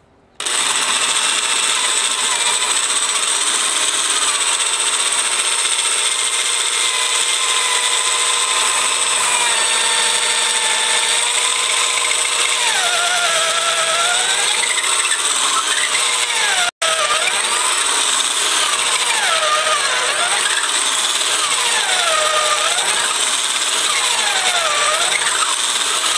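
Electric drill running steadily, boring a twist bit into the end grain of a wooden beam to pre-drill a hole for a large screw. The motor's whine wavers in pitch as the bit bites deeper and the load changes, and it cuts out for an instant about two-thirds of the way through.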